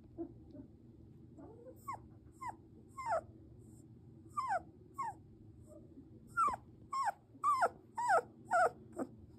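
Two-week-old German Shepherd puppy whimpering: about eleven short, high cries, each falling in pitch, coming closer together and louder from about six seconds in.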